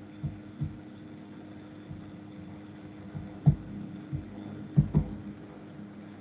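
A steady low hum under faint background noise, with a few soft, irregular low thumps scattered through it, two of them louder, about three and a half and five seconds in.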